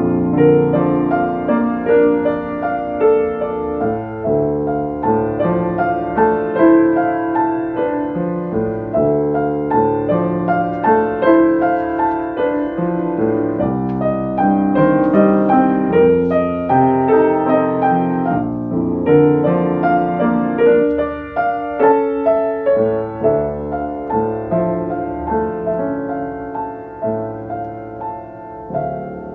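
Solo piano playing a steady run of notes, growing softer over the last few seconds as the final notes ring out and fade.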